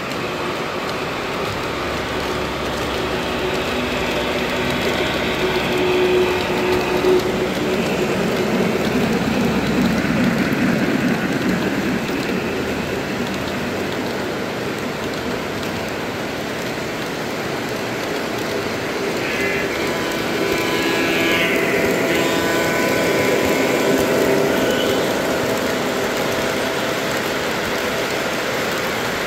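Three-rail O-gauge model trains running past on the layout track: a steady rolling rumble and hiss of metal wheels on the rails. About two-thirds of the way through there is a brief sound with several pitches layered over the rolling.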